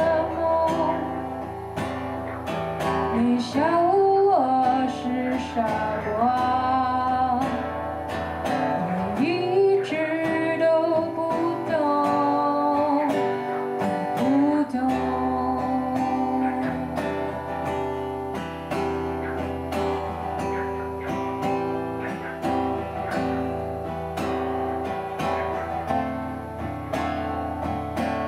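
Live acoustic guitar with a woman singing: sung phrases with gliding pitch over the guitar for about the first half, after which the acoustic guitar plays on alone to close the song.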